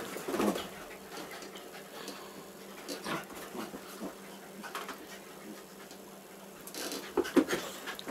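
A basset hound and a labradoodle play-fighting, with scattered short bursts of dog noise and scuffling; the loudest comes a little after seven seconds in.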